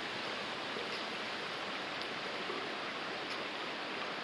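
Steady rush of a small waterfall and creek, running water with no break.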